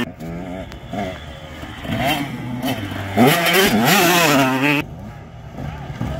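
Dirt bike engines revving, their pitch rising and falling as the throttle opens and closes. One bike passing close is loudest from about three seconds in, then the sound drops away suddenly just before five seconds, and a quieter engine builds again near the end.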